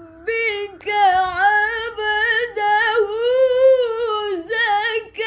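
A woman chanting Quran recitation in tilawah style, drawing out the words "rabbika ʿabdahu" in long ornamented melodic runs that rise and fall in pitch. She breaks off for a quick breath about a second in and again near the end.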